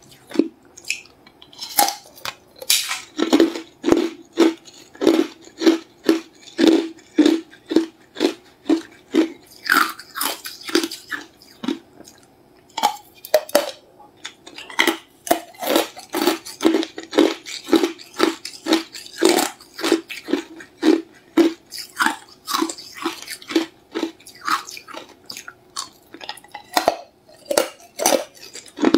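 A person biting and chewing hard ice: a steady run of sharp, crisp crunches about two a second, with a short pause about twelve seconds in.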